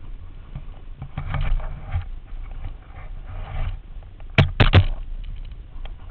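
Snowboard sliding and scraping over snow, with a steady low rumble of wind and board vibration on the camera's microphone. There are surges of scraping as the edge bites, and two or three sharp loud knocks about four and a half seconds in.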